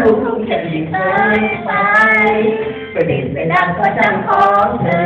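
Singing into a microphone, held notes that bend in pitch, over backing music.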